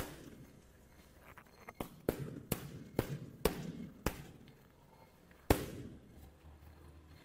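Boxing gloves smacking into focus mitts: a quick run of about six punches landing two to four seconds in, then one more a second and a half later.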